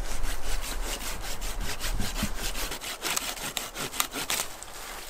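Hand saw, a folding saw, cutting through a fallen pine branch in quick, regular back-and-forth strokes.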